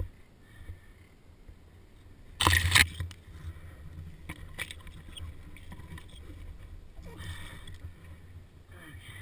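Dirt bike engine running low in the background, broken about two and a half seconds in by a sudden loud half-second scrape and clatter, followed by a few sharp knocks as the bike comes into contact with the fallen one.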